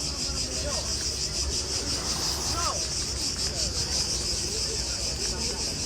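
Cicadas buzzing in a steady, high, shrill chorus with a fast pulsing texture.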